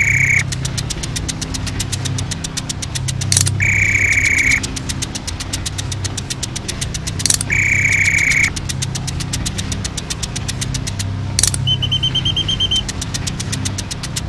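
Cartoon assembly-line machinery sound effects: a low machine hum with rapid, even clicking. About every four seconds a clank is followed by a one-second electronic buzz as an assembly machine fits a part. Near the end the buzz is a higher tone.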